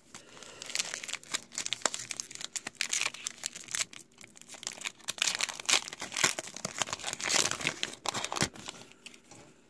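Plastic wrapper of a Topps WWE Raw trading-card pack crinkling and tearing as it is ripped open by hand. It is a dense crackle of sharp snaps in two busy spells, the second starting about five seconds in.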